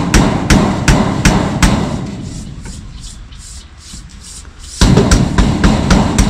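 Background music with a steady, fast knocking beat, fading down in the middle and cutting back in abruptly near the end.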